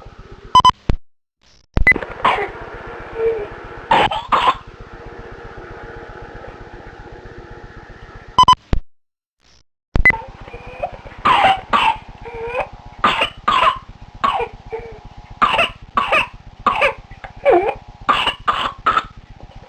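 A two-year-old child with whooping cough in a coughing fit: a few single coughs, then a fast run of harsh coughs one after another in the second half, with strained pitched gasps for breath between them. This is the paroxysmal cough of pertussis. The recording cuts out briefly twice, over a steady hum.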